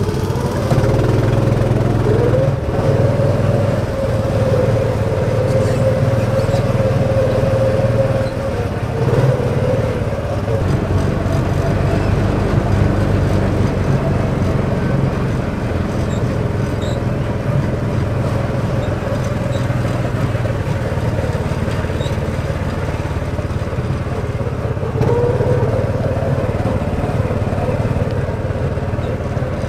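Small engine of a Turnpike Cruisers miniature ride car running steadily as it is driven, with a whine whose pitch shifts a few times as the car speeds up and slows.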